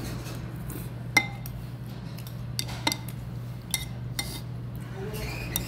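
Metal spoon clinking against a small stainless-steel bowl while eating: about six separate clinks, each with a short ring, the loudest about a second in. A steady low hum runs underneath.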